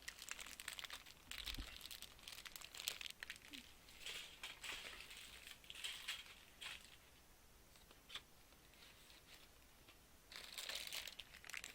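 Plastic bags of model-kit parts crinkling in repeated bursts as they are handled, with a few small clicks, quieter for a few seconds in the middle.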